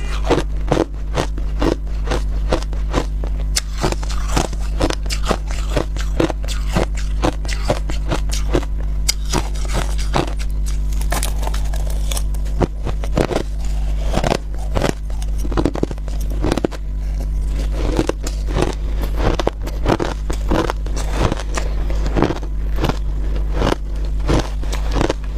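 Crushed ice being bitten and chewed close up, a rapid, irregular run of crisp crunches and crackles, with a metal spoon now and then scraping ice in a plastic bowl. A steady low hum lies underneath.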